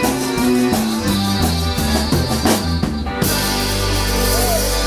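Live zydeco band of accordion, washboard, bass guitar, drum kit and electric guitar playing an uptempo groove. About three seconds in, the drums and rhythm stop and the band holds one long chord.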